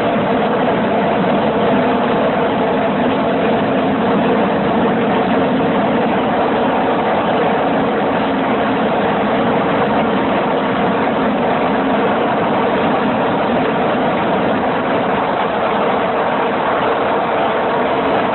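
A heavy engine droning steadily, with an even hum that does not change in pitch or loudness.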